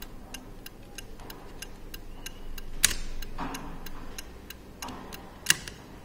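Electromechanical turn-signal flasher relay ticking steadily, about three clicks a second, as it flashes the lamps. Two louder sharp clicks, a little before halfway and near the end, come from the turn-signal stalk switch being moved by hand.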